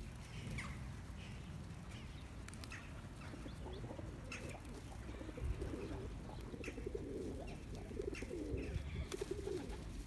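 A flock of feral rock pigeons cooing, the cooing growing fuller through the second half, with short high bird chirps scattered throughout.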